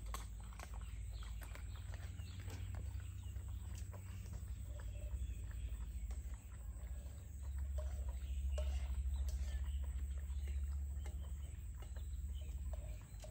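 Two dogs eating from bowls: chewing, with many small clicks of food and bowl. Underneath is a steady low rumble that grows louder past the middle.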